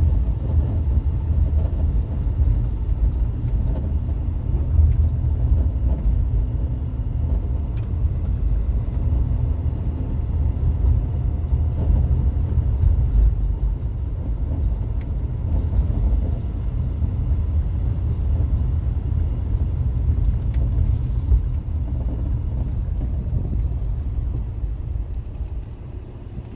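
Road and running rumble inside the cabin of a 2010 VW Tiguan on the move, with faint scattered clicks of a hollow, plastic-sounding rattle from behind the dashboard. The owner later traced the rattle to a defective strut top mount.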